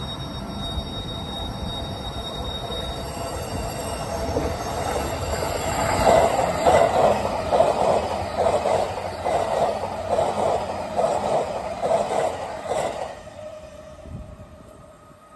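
JR East E261-series Saphir Odoriko electric express train passing close by. The rumble grows as it approaches and is loudest with a regular beat, a little under two pulses a second, as the cars go by. It fades after about thirteen seconds.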